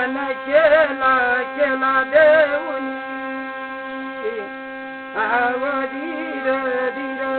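Steady droning hum of a thali, a brass plate with a stick stood on it and rubbed, under a man singing a ritual song in two phrases: one at the start and another from about five seconds in.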